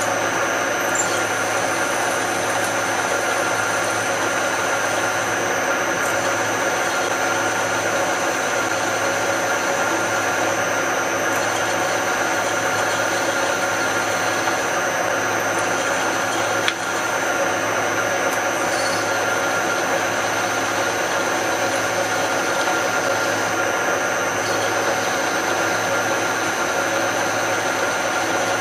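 Drilling machine running steadily with a steady hum while a drill bit slowly bores into stainless steel. A single sharp click comes about 17 seconds in.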